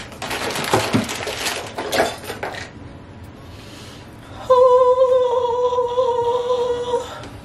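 Hair tools and plastic items clattering as they are rummaged through in a storage bin, then a woman humming one long held note for about two and a half seconds.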